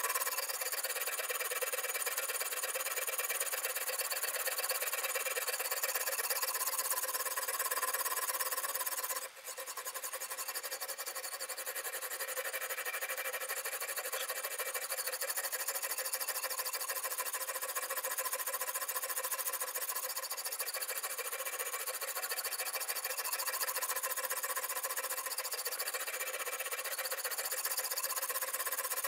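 Sharpening stone on a guided-rod knife sharpener scraping rapidly back and forth along the edge of a Damascus steel kitchen knife: a steady grinding, scraping noise with a brief break about nine seconds in.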